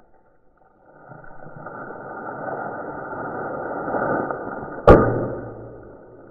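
A rushing whoosh that swells over about four seconds and ends in one sharp bang, the loudest sound, which then dies away.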